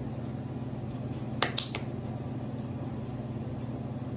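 A single sharp finger snap about a second and a half in, with a lighter click just after, over a steady low hum.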